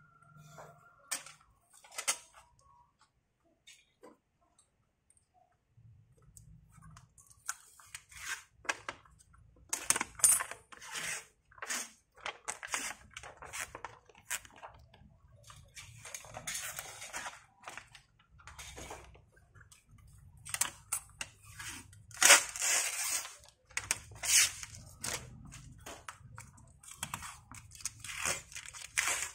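Old polarizer film being peeled by hand off the glass of a 40-inch Samsung LCD TV panel: after a few scattered clicks, the plastic film crackles and crinkles in irregular bursts for most of the time as it lifts from the glass.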